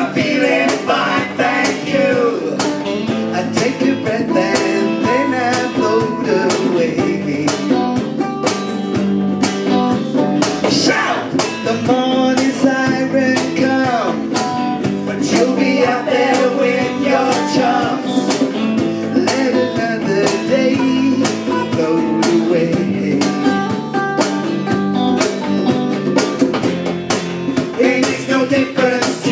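Live band playing a song: electric guitars with a male and a female singer.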